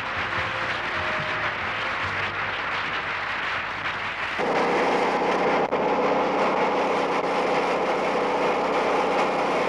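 Applause and crowd noise, then about four seconds in a wood chipper's engine cuts in abruptly and runs steadily with a hum of several steady low tones.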